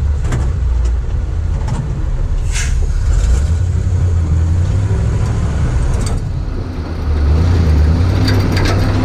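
Fuel-injected 427 big-block Chevrolet V8 of a 1969 Chevrolet dump truck running under way in first gear, a steady low rumble with scattered clicks and rattles. The engine sound dips briefly about seven seconds in, then comes back louder.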